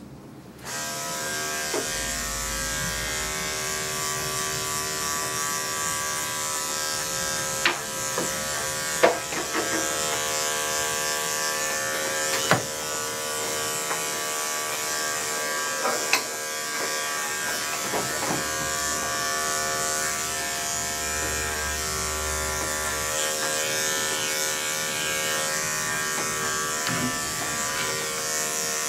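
Electric dog-grooming clippers switching on about half a second in and running with a steady whining hum while clipping a Scottish terrier's coat. A few short sharp sounds stand out over the hum.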